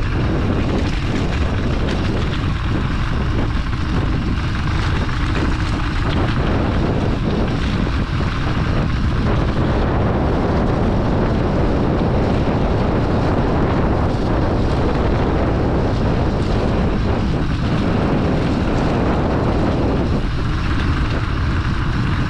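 Steady wind rush on the camera microphone and the rolling noise of a mountain bike riding a wet road.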